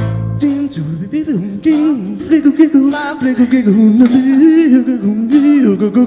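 A cappella vocal music: a held sung chord ends about half a second in. Then a voice hums a wavering melody over beatboxed mouth percussion, with frequent sharp clicks and snare-like hits.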